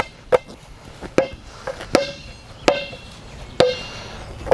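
A basketball dribbled on a hard court: about seven bounces, roughly one every three-quarters of a second, each a sharp slap followed by a short ringing ping.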